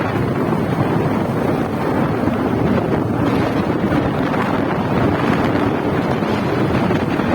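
Waterfall rushing: a steady noise of falling water.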